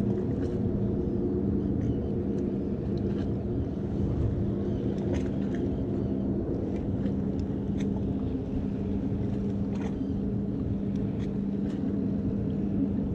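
Steady low motor hum with a constant rumble underneath, unchanging throughout, with a few faint ticks.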